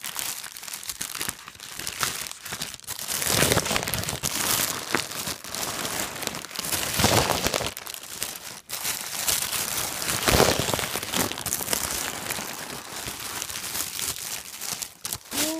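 Plastic mailer bag and the clear plastic wrapping of a backpack crinkling and rustling as they are handled, continuous, with several louder surges.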